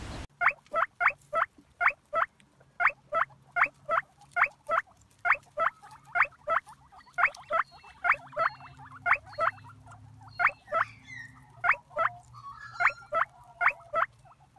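Guinea pigs squeaking in a long run of short, sharp, high calls, about three a second.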